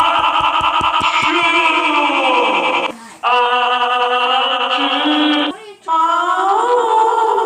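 A heavily processed, layered voice held in long sustained notes, sounding like synthetic singing. Three held notes are split by two brief breaks, about three seconds in and near six seconds, and the first note sags in pitch just before its break.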